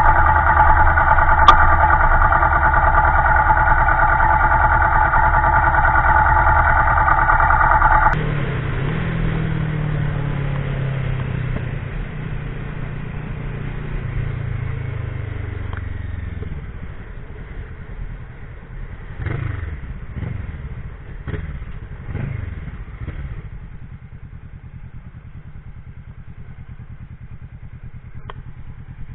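Motorcycle engine held at high, steady revs, cut off sharply about eight seconds in as the throttle closes. The engine note then falls steadily as the bike slows, with a few brief rises and falls in pitch, before settling to a quiet, low idle near the end.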